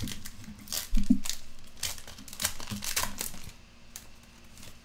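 A foil trading-card pack wrapper crinkling as hands tear it open and handle it: a run of crackling rustles that dies down to faint handling after about three and a half seconds.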